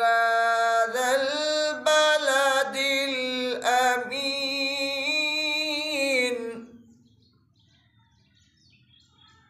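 A young man's solo Quran recitation in melodic tajweed style: a long ornamented phrase sung on held, wavering notes that fades out about six and a half seconds in, followed by near silence as he pauses for breath.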